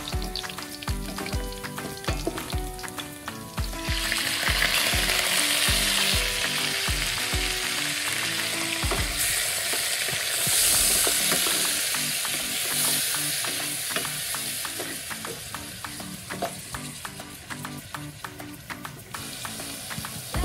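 Pork belly pieces frying in hot oil in a stainless steel pan, sizzling as a wooden spoon stirs them. The sizzle grows much louder about four seconds in and eases off near the end. Background music with a steady beat plays underneath.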